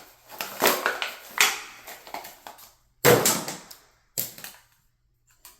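Handling of an adjustable wrench and shower-head parts: a few sharp knocks and clatters, about four of them with the loudest about three seconds in, each with a brief ring.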